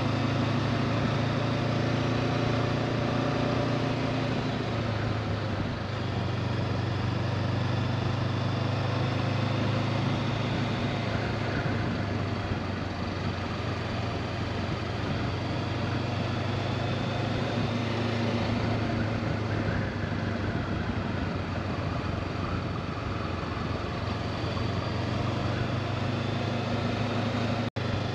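Honda CB500X motorcycle's parallel-twin engine running steadily at cruising speed, with wind rush over it; the engine note shifts slightly lower about five seconds in.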